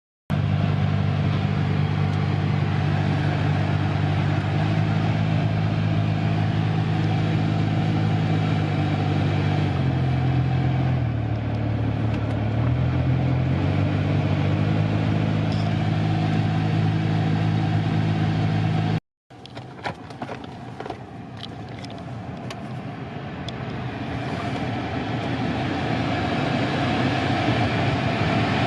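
BMW F10 5 Series air-conditioning blower running with a loud low drone whose pitch steps up and down several times: the abnormal airflow noise. After a break, a few clicks, then a smooth rush of air that grows steadily louder with no drone.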